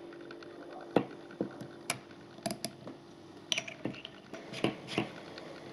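Irregular sharp clicks and light taps from a Leapers UTG 4x32 AO riflescope being handled, its adjustment turret turned, with paper rustling in the second half. A faint steady hum runs underneath.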